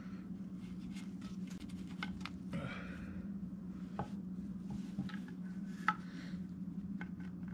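Handling noises from an engine valve cover being turned over and set down on a shop towel: scattered light taps, clicks and rubbing, over a steady low hum.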